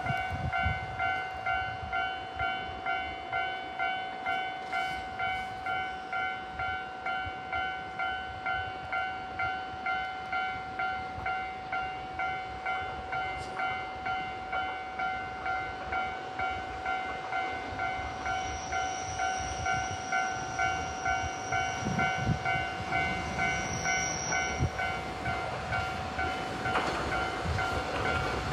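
Japanese level-crossing warning bell ringing steadily at about two strokes a second. Under it a Nagara 300 diesel railcar approaches, and its rumble grows a little louder over the second half.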